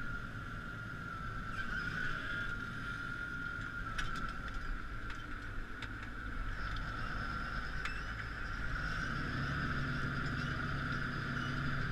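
Claas Axion 840 tractor running steadily under load while pulling a plough, with a constant high whine over the diesel engine's rumble and a few scattered ticks. Near the end a lower hum joins in.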